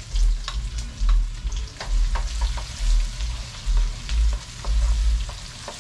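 Chopped onion sizzling as it fries in hot oil in a pan, stirred with a wooden spoon that clicks against the pan. A low thump comes about once a second.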